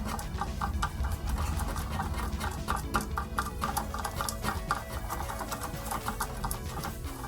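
Quick run of light clicks and ticks, several a second, as a small nut and washers are worked onto a binding post's thread by hand, with quiet background music underneath.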